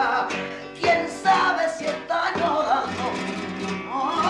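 Flamenco guitar accompanying fandangos de Alosno, with strong strummed chords about a second in and picked notes after them. A male flamenco singer holds a wavering note at the start and comes back in near the end.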